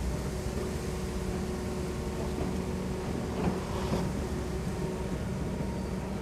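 Kobelco SK200 long-reach excavator's diesel engine running steadily as it works its hydraulics to lift the boom and arm. A brief clatter, likely soil and stones, sounds about three and a half seconds in.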